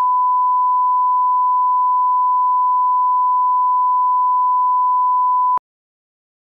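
Steady 1 kHz reference test tone of a colour-bars leader, a single unchanging pure pitch that cuts off suddenly near the end.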